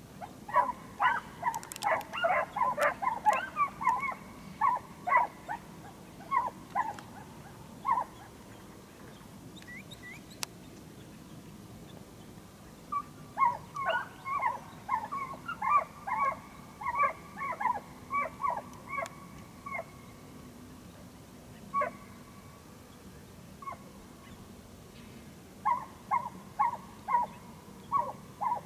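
A pack of dogs barking in runs of short, pitched barks, several a second. There are three main runs with pauses of a few seconds between them, and a few single barks in the gaps.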